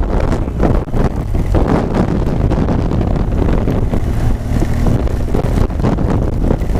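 Wind buffeting the microphone of a helmet-mounted camera on a moving motorcycle in the rain, with the low, steady running of a BMW R1200GS Adventure's boxer-twin engine beneath it.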